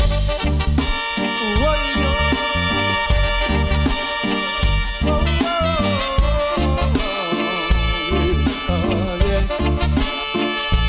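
Reggae band playing an instrumental passage: drums and bass keep a steady, even beat under a melodic lead line that slides up and down in pitch.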